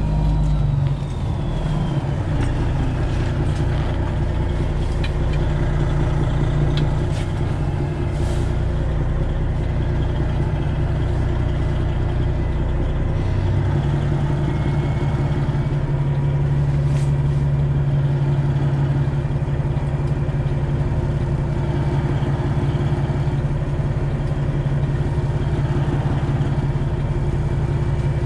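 Detroit Diesel Series 60 12.7-litre engine of a Freightliner Classic XL semi-truck running at low speed during yard maneuvering, a steady low drone that changes pitch a few times as the throttle and gears change.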